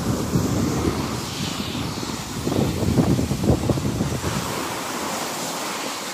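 Wind buffeting a moving camera's microphone: a loud, uneven low rumble that swells and dips throughout.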